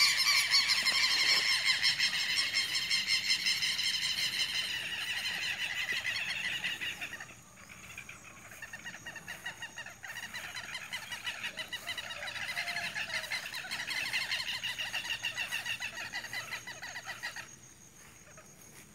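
Birds calling over and over in rapid, high, harsh squawks, loud at first, breaking off sharply about seven seconds in, then coming back more faintly and stopping near the end.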